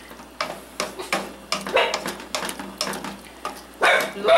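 Wooden spoon stirring ground beef in an aluminium pot, knocking and scraping against the pot's sides about three times a second. Near the end a dog barks or yelps.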